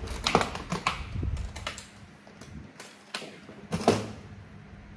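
A run of sharp clicks and knocks as a hard-shell guitar case is handled and opened, thick in the first two seconds, then sparser, with a louder knock about four seconds in.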